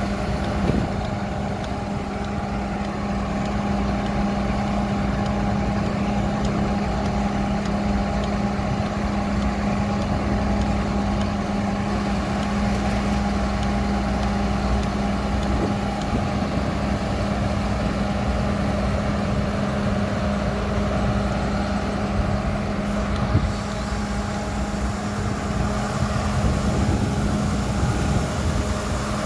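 Horizontal directional drilling rig running steadily, its engine and hydraulic drive pushing a steel drill rod into the ground, a constant hum and rumble. One brief knock comes near the end.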